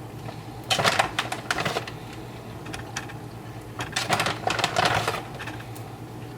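Tortilla chips crackling and clicking against each other and the plate as shredded cheese is spread over them. The crackling comes in two bursts, about a second in and again about four seconds in, over a low steady hum.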